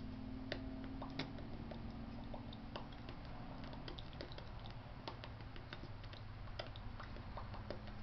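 Quiet room tone: a steady low hum with scattered faint, irregular clicks.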